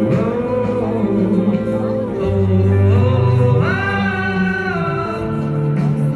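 Rock band playing live, with a male voice singing held notes over the instruments.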